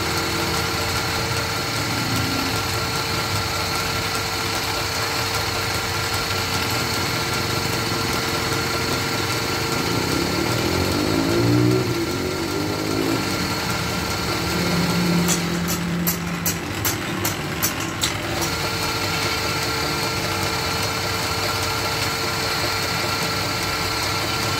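Electric wood lathe running steadily with a constant hum as it spins a turned wooden bed leg being hand-polished. About halfway through a brief wavering sound rises over the hum, and a little later comes a quick run of sharp clicks.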